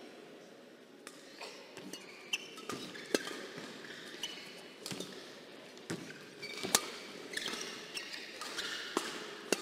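Badminton rally: a string of sharp racket-on-shuttlecock hits, about a second apart, with short squeaks of court shoes on the floor between them.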